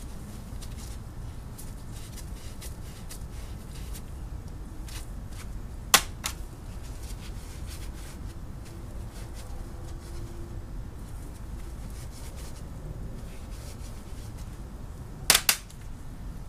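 Two sharp knocks of metal vise parts being handled, each a quick double strike, one about six seconds in and one near the end, over a steady low background rumble.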